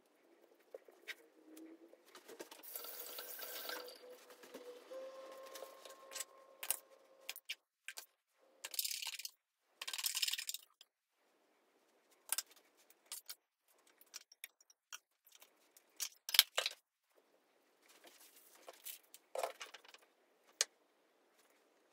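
Kitchen food-prep handling sounds as sushi rolls are assembled: scattered clicks and taps, a few seconds of steady hiss early on, and crinkling of a cream cheese packet's wrapper about nine to ten seconds in.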